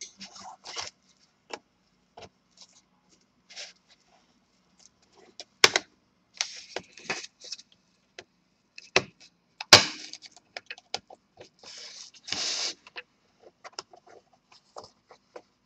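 Plastic clips of a Dell Inspiron 15 5567's palmrest case clicking loose as a pry tool works along the seam between the two halves, with short scrapes of the tool against the plastic. Two sharper snaps stand out, about six and ten seconds in.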